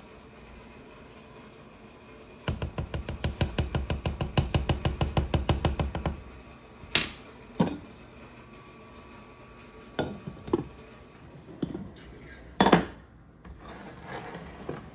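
A cooking spoon beating thick cheese grits in a metal saucepan: fast, even strokes, about eight a second, for some three seconds. Then come a handful of separate knocks and clanks of spoon and pans on the stovetop, the loudest near the end.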